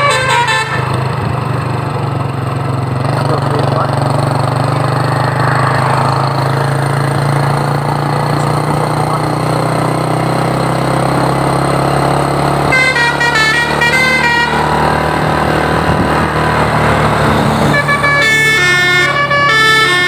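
A bus's basuri 'telolet' multi-tone air horn plays its stepping melody, once for about two seconds about two-thirds in and again near the end, over steady engine and road noise.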